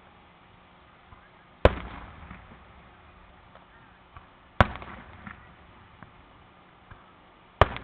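Aerial firework shells bursting: three sharp booms about three seconds apart, each trailing off in an echo, with a few faint pops between.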